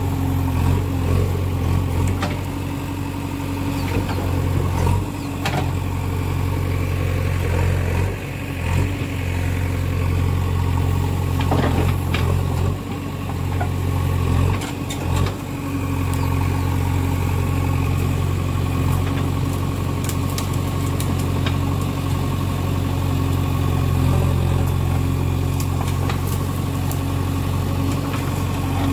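JCB 3DX backhoe loader's diesel engine running steadily under load, with a few brief knocks and dips in the engine note along the way.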